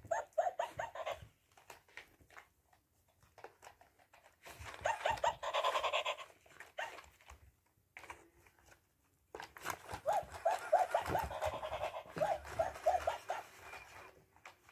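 A small dog playing with a plush toy, with two long runs of rapid, high pulsing sounds, one around a third of the way in and a longer one past the middle, and scattered soft knocks between them.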